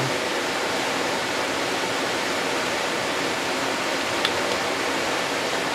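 Steady, even hiss of background noise with one short, light click about four seconds in.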